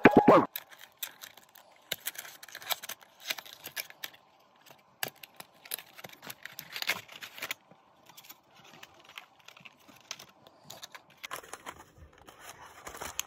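Cardboard box and plastic packaging tray being handled and opened: scattered rustles, crinkles and small clicks, coming and going with short pauses.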